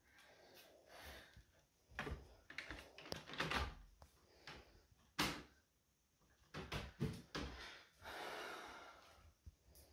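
Clicks and knocks of hands handling the TV's plastic and metal parts, then a small cordless electric screwdriver runs for about a second, driving a screw into the TV's frame, about eight seconds in.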